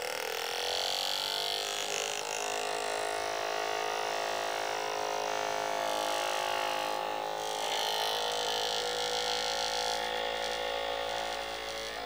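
Small DC motor driving a cardboard model diesel engine, running with a steady whine that climbs a little in pitch in the first second, as it spins up.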